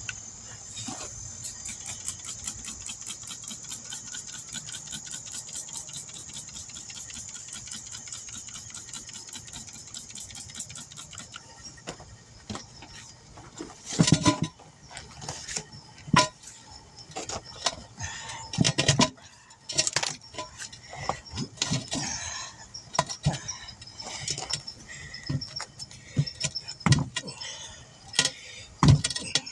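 A rapid, even ticking over a steady high hiss for about the first ten seconds, then irregular knocks and clanks as a new tire is handled and worked onto a steel wheel rim. The loudest knocks come about fourteen seconds in and again around twenty seconds.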